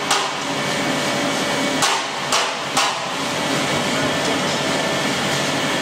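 Machinery of a straw pellet production line running, a steady, loud hum and hiss with faint steady tones. Sharp knocks come four times in the first three seconds, then only the steady running noise.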